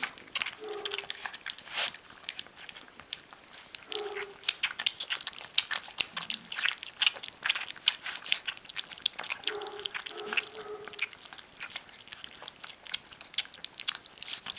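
Rhodesian Ridgeback puppies lapping and chewing soaked rings from a dish of milky food, their first solid meal: a rapid, uneven run of wet clicks and smacks. A few short grunts come about a second in, at four seconds and near ten seconds.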